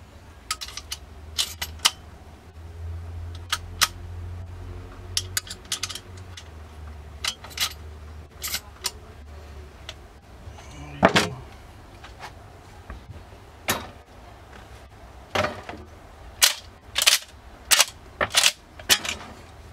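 Marlin 1894 lever-action rifle (.44 Magnum) being function-checked after reassembly: the lever and hammer worked by hand, giving sharp metallic clicks and clacks in short groups, the strongest a little past the middle and a quick run of them near the end.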